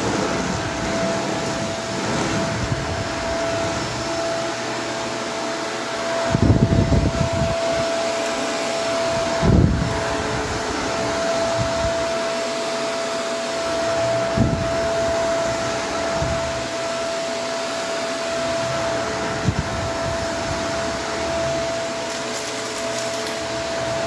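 Vacuum cleaner running steadily with a constant motor whine. Louder low thumps and bursts come a few times, about six seconds in, near ten seconds, near fourteen and near twenty seconds.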